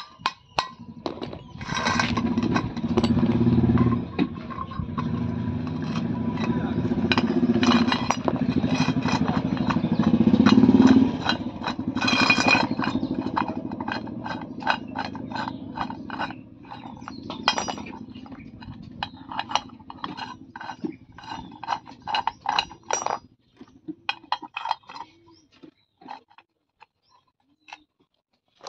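Metal clicking and rattling as a homemade threaded-rod screw clamp is worked by hand, the rod and nut turned and steel pieces shifted on the jig. The clicks come fast in the middle and thin out near the end. An engine runs underneath for about the first eleven seconds, rising in pitch just before it stops.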